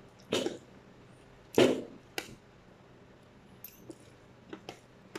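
Metal spoons and forks scraping and clinking against ceramic plates while eating. Two louder scrapes come in the first two seconds, then light, scattered clinks.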